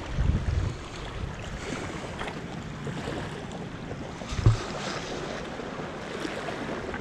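Wind buffeting the microphone over small waves washing against shore rocks, with a low rumble of gusts just after the start and a single short thump about four and a half seconds in.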